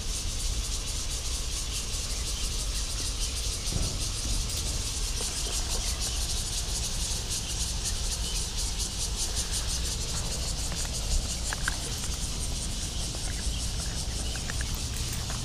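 Steady, high-pitched insect chorus with a fast pulsing texture over a low rumble, with a few light clicks about eleven seconds in and again near the end.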